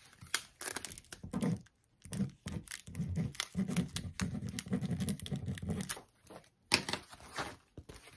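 Pen scratching as it writes on a diamond-painting canvas, among rustles of the canvas being handled. Near the end the canvas crinkles as it is lifted off the table.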